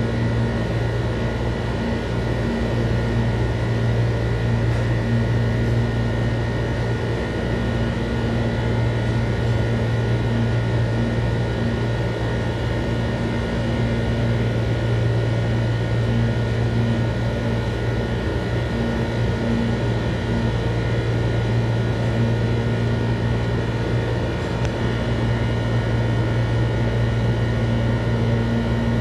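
Steady mechanical hum: a strong low drone with several faint high whining tones above it, unchanging throughout.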